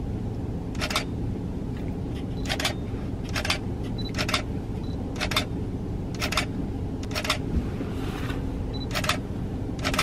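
Camera shutter firing about once a second, roughly ten short clicks, over a steady low hum.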